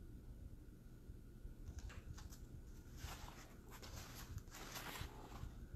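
Quiet room tone with a few faint, soft rustles, about two seconds in and again from three to five seconds in.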